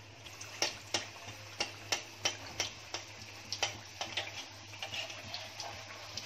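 A samosa deep-frying in hot oil and ghee in an iron kadhai: a steady sizzle with sharp, irregular pops and clicks about twice a second, while a slotted metal spoon splashes oil over it.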